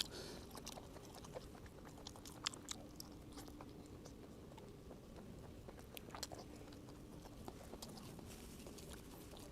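Close-up chewing of steamed roe squid, with scattered short wet mouth clicks over a faint steady low hum.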